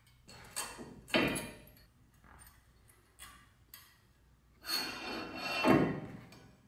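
Metal brake pad clips being pressed into a car's front brake caliper mounting bracket by hand: a few short clicks and scrapes, then a longer scraping rub about five seconds in, the loudest sound.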